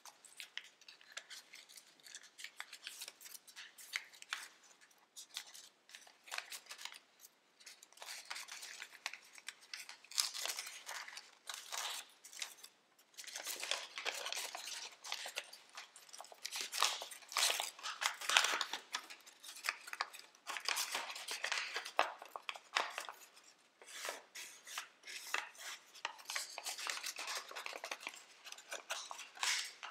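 Tissue foil origami paper crinkling and rustling as it is folded and creased by hand, an irregular run of crisp crackles that is busiest and loudest around the middle.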